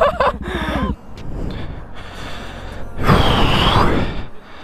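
Motorcycle engine idling under voices, cutting off about a second in. Then a rushing noise of riding, with wind on the microphone, loudest for about a second near the end.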